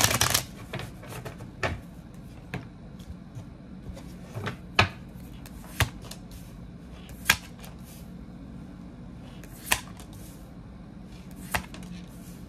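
Tarot cards being handled on a table: a short burst of shuffling right at the start, then single sharp card clicks, about eight of them, one to two seconds apart. A faint steady low hum runs underneath.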